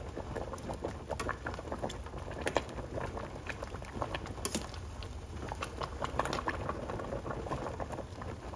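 Salted water at a rolling boil in a metal pan of lasagna noodles, bubbling with a steady run of small pops and ticks.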